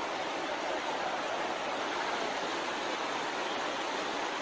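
Swollen, muddy river in flood rushing steadily over a ford: a continuous even rush of fast-moving water.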